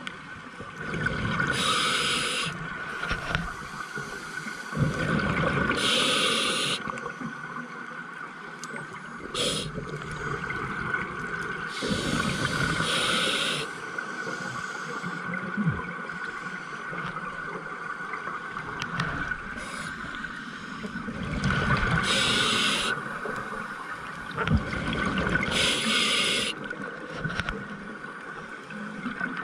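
A scuba diver breathing through a regulator underwater. Several short hissing inhalations come a few seconds apart, with gurgling exhalation bubbles between them.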